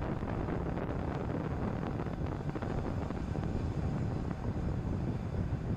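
Falcon 9 first stage's nine Merlin 1D engines at full thrust during ascent: a steady, dense low rumble.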